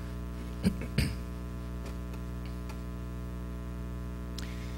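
Steady electrical mains hum through the church sound system, with two short knocks close together about a second in, from handling at the pulpit microphone.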